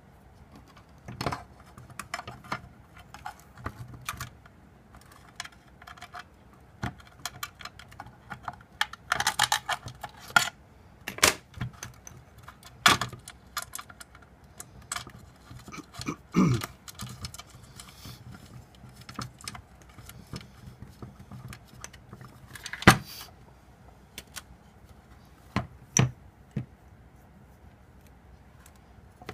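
Irregular clicks, small rattles and a few sharper knocks of small metal parts being handled: machine screws and aluminium pipe spacers being fitted and screwed into a metal motor mount.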